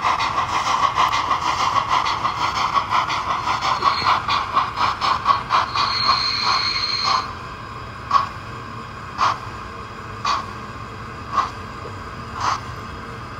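Roco HO-scale BR 10 model steam locomotive running and slowing down: its chuffing goes from a rapid beat to slower beats, with a brief high whine about six seconds in. After that it drops to single chuffs about once a second as it creeps along.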